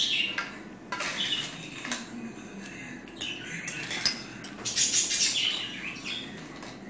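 Small pet birds chirping in a cage in bursts every second or so, with cutlery clinking on plates.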